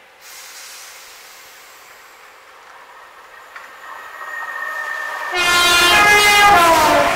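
An electric multiple unit approaches and runs through the station at speed, the rush of wheels on rail growing louder. About two-thirds of the way in its horn sounds loudly, and its pitch drops as the train passes.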